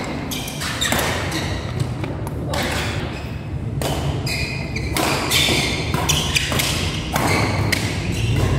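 Badminton rally: irregular sharp racket strikes on the shuttlecock and players' footfalls on the court, over a steady low hum.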